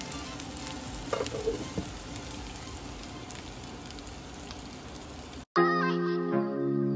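Chicken pieces sizzling as they fry in oil in a pan, with a few light clicks about a second in. About five and a half seconds in the sizzling cuts off suddenly and music starts.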